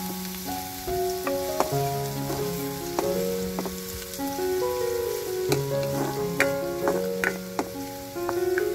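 Chopped garlic sizzling in hot coconut oil in a metal wok, stirred with a metal spoon that clicks and scrapes against the pan. Soft background music of held notes plays over it.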